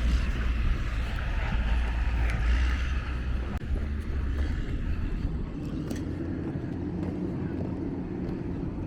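Street traffic with vehicle engines running and a deep rumble that fades about three and a half seconds in, leaving a steadier low hum.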